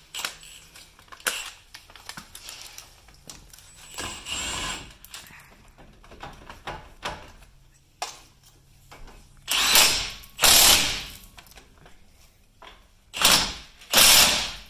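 Impact gun running a bolt down in short bursts: two bursts about ten seconds in and two more near the end, after some light clicks and clatter of tools.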